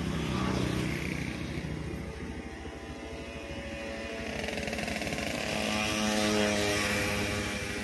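A small motor vehicle's engine running close by, its pitch and loudness rising to a peak about six seconds in, then easing slightly.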